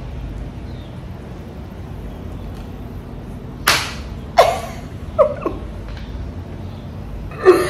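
A sharp hand clap about three and a half seconds in, followed by a few short, high excited yelps, then another sharp smack near the end.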